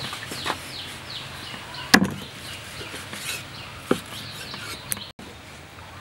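Meat cleaver chopping through stingray on a wooden stump chopping block: four sharp chops at uneven intervals, the loudest about two seconds in. Birds chirp in the background.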